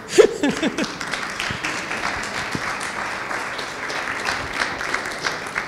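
Audience applauding steadily in a hall, the clapping dying away near the end.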